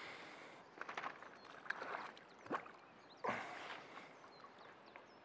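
Quiet rustles and a few light knocks as a landing net on its pole handle is lifted and swung about, with a short louder rustle a little past the middle.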